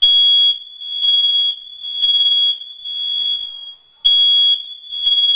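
Smoke alarm sounding on its test button: a run of loud, high-pitched beeps, about one a second.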